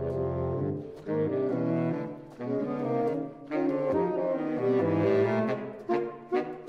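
Saxophone trio (alto, tenor and baritone) playing together, in short phrases separated by brief breaks.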